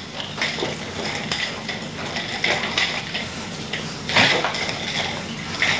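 Nunchaku being swung in fast continuous strikes, the chain and sticks clicking and rattling throughout, with a louder burst about four seconds in.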